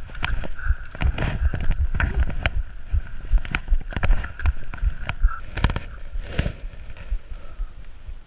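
Mountain bike rolling fast over a gravel trail: tyres on loose gravel, with a dense run of clicks, rattles and knocks from the chain and frame over bumps, and low thumps. A steady high whir runs under it and fades near the end as the bike slows and stops.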